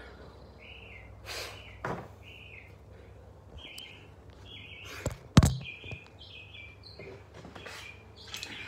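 A small bird chirping repeatedly in short, irregular chirps, over knocks and rubbing from a phone being handled and set down, with one sharp thump about five and a half seconds in.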